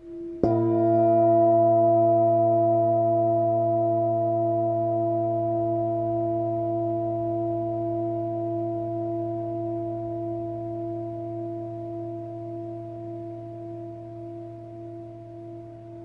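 Antique Tibetan singing bowl held on the palm and struck once with a felt mallet about half a second in. It rings with several tones sounding together, fading slowly with a gentle wavering.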